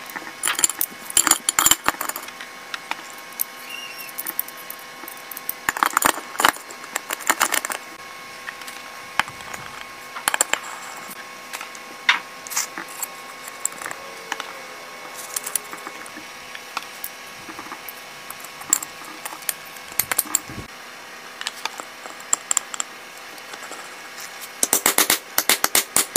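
Metal engine parts clicking and clinking against an aluminium motorcycle crankcase half as the gearbox shafts are fitted and handled, in scattered clusters of sharp taps. Near the end comes a quick run of taps from a hammer on the case.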